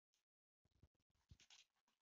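Faint, irregular crackling of eggs frying in a nonstick pan, starting about two-thirds of a second in, with a few soft low thumps.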